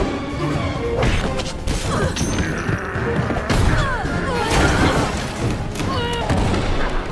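Action-film fight soundtrack: music under a quick run of punches, thuds and crashes, with short cries from the fighters.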